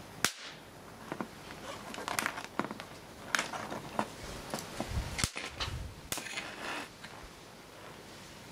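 Capacitor bank discharging in sparks at its contacts: a string of sharp electrical snaps and crackles, the loudest about a quarter second in, with others scattered irregularly over the next several seconds.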